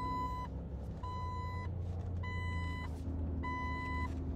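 Reversing alarm of heavy equipment beeping steadily, four single-pitch beeps a little more than a second apart, heard from inside a vehicle cabin over a low engine rumble.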